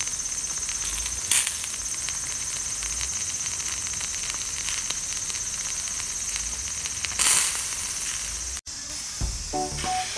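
Meat fat dripping onto hot charcoal under a grate of skewered chicken and pork belly, sizzling and crackling steadily with two louder pops. Light music comes in near the end.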